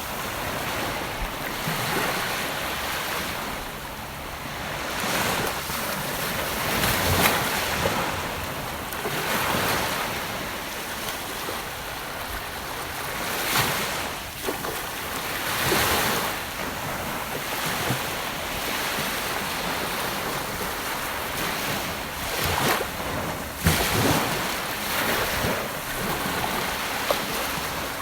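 Gentle ocean waves breaking and washing up on a beach: a steady hiss of surf that swells and eases every few seconds.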